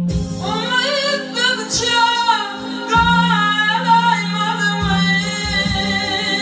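A singer's voice entering at once with a wavering, ornamented vocal line over instrumental accompaniment that holds a steady low drone.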